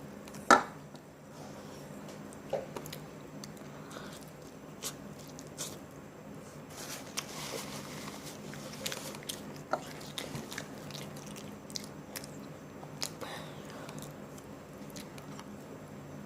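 Close-up eating sounds of spicy chicken: crunchy bites and wet chewing, irregular crackles and smacks, with the loudest bite about half a second in.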